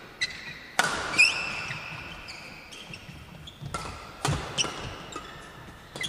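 A badminton rally: rackets strike the shuttlecock in a string of sharp hits with uneven gaps, echoing in a large hall, while court shoes squeak on the floor between hits.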